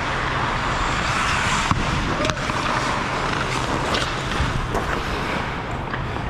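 Ice hockey play heard in the rink: a steady hiss of skates on the ice, broken by a few sharp clacks of sticks and puck, the loudest about two seconds in.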